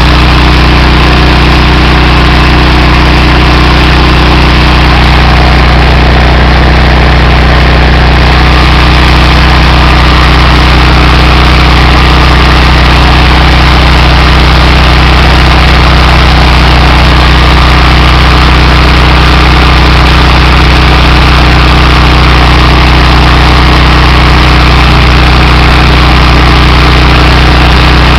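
Honda GX390 single-cylinder four-stroke engine on a pressure washer running steadily at one speed, loud and close.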